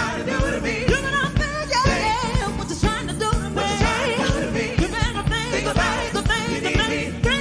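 A live soul band playing with voices singing over a steady drum beat.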